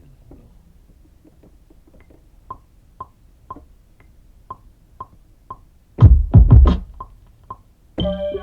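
Electronic drum-machine beat: a light pitched percussion hit about twice a second, joined about six seconds in by heavy kick-drum hits, with a held synth chord coming in near the end.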